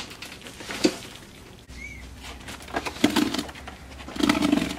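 Cardboard firework boxes being handled: a few sharp knocks and scrapes, the longest and loudest near the end, with a short squeak about two seconds in.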